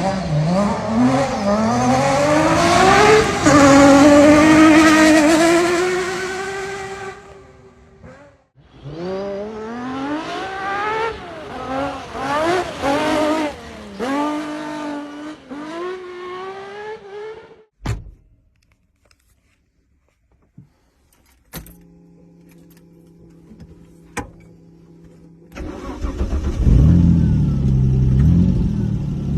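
Lancia Stratos's 2.4-litre Dino V6 accelerating hard, its pitch climbing and dropping through several gear changes, twice. After a short near-silent break a steady low hum, then the engine revving at low speed near the end.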